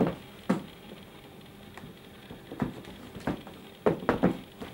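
Sneakers being set down and shifted on a cardboard shoebox lid: a series of separate short knocks, three of them close together near the end.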